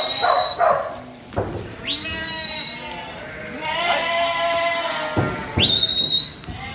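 Sheep bleating in the yards, with three short, high, steady whistles, each about a second long and rising slightly at the end. They are typical of a handler's whistle commands to a working sheepdog.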